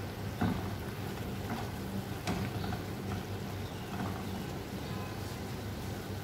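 Eggplant, tomato and onion sizzling in a hot pan while a wooden spatula stirs them, with a few short knocks of the spatula against the pan, the loudest about half a second and two seconds in. A steady low hum runs underneath.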